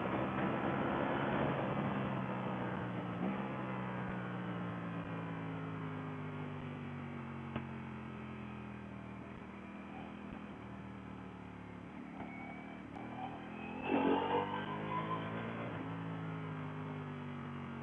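Ducati Panigale V4 S's V4 engine heard from the rider's seat. After a downshift about three seconds in, the engine note falls slowly as the bike slows in second gear, then rises sharply as the throttle opens and the bike accelerates about fourteen seconds in.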